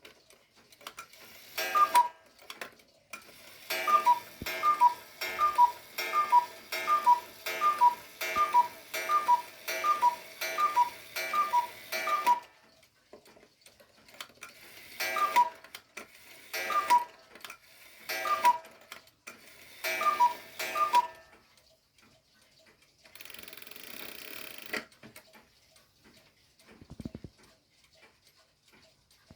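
Hubert Herr cuckoo clock calling. Its bellows-blown two-note cuckoo falls in pitch and repeats many times in quick succession, then in a slower run. A short whirr of the mechanism follows, then the clock ticks faintly.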